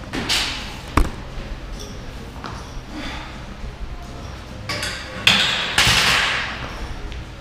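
Workout impacts on a rubber gym floor: a sharp thud about a second in, a few lighter knocks, and two long noisy rushes of sound about five seconds in that fade away.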